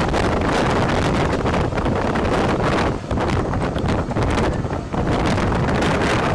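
Wind buffeting the microphone: a loud, gusty rushing noise that dips briefly about three seconds in and again near five seconds.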